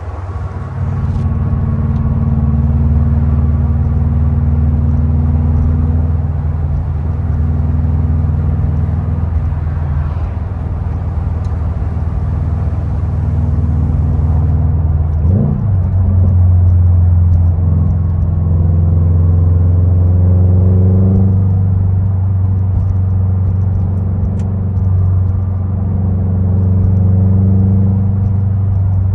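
The 2021 Subaru WRX STI's turbocharged 2.5-litre flat-four runs through a Tomei aftermarket exhaust while cruising, a steady low drone. About halfway through the revs rise and fall quickly, and the note then climbs gently as the car pulls on.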